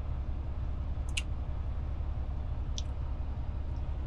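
Steady low rumble of a semi-truck's engine idling, heard from inside the cab while stopped in traffic, with two sharp clicks, about a second and about three seconds in.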